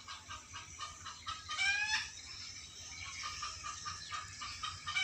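Bird calls: a run of short notes repeated several times a second, with a rising call about one and a half seconds in and another at the very end.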